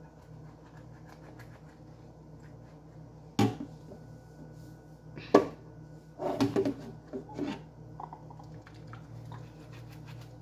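Dishes being washed by hand: a sponge working on a clear plastic cup, with sharp knocks and clatters of dishware. One comes about three and a half seconds in, the loudest at about five seconds, and a quick cluster just after. A low steady hum runs underneath.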